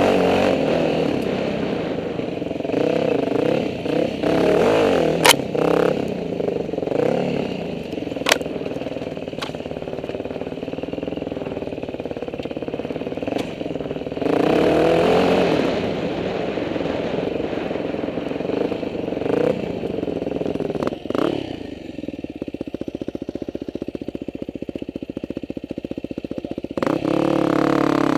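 Dirt bike engine revving up and easing off over and over, with a few sharp clicks about five to nine seconds in. Later it drops to a slow, low-revving putter before picking up again near the end.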